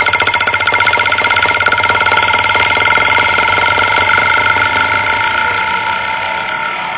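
Snare drum played with sticks in a very fast double-stroke roll, the drum head ringing steadily under the strokes. The roll speeds up until the strokes run together into a continuous buzz, then eases slightly in level near the end.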